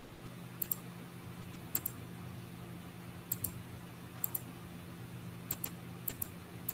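Sharp double clicks from someone working a computer, six of them spaced roughly a second apart, over a steady low hum.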